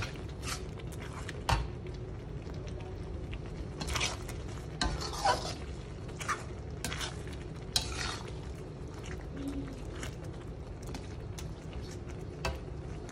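A slotted spatula stirring thick chilli sambal with beef lung in a metal wok, with irregular scrapes and knocks against the pan over a low, steady sizzle as the sauce cooks down and thickens.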